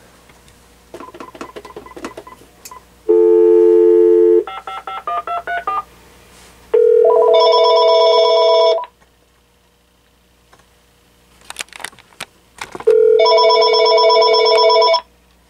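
Panasonic KX-TG6641 cordless phone handsets and base ringing on an incoming call. A steady electronic tone is followed by a short stepped melody, then two rings of about two seconds each, some six seconds apart, with a few faint clicks between.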